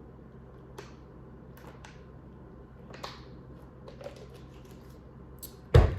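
Scattered soft clicks and crinkles of eating and handling food, then one loud thump near the end.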